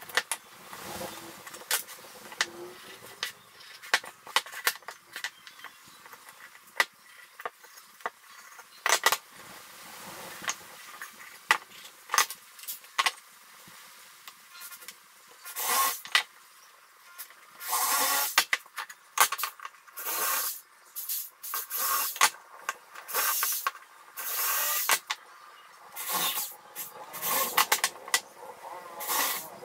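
Wooden boards being handled on a wooden workbench: scattered sharp knocks as pieces are set down and tapped together, and from about halfway through, repeated scraping as boards slide across the benchtop and onto each other.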